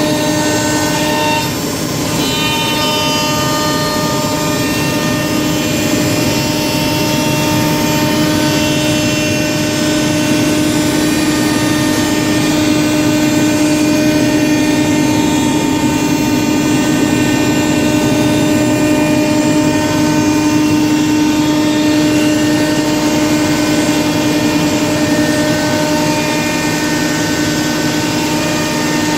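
CNC router spindle running steadily with a constant whine while routing a sheet of Corian solid-surface material, the cutter's rasp underneath it.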